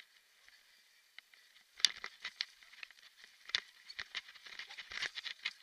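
Irregular clicking and rattling of a cross-step kick scooter and its mounted camera jolting over bumpy grass. It starts about two seconds in, after a quieter stretch.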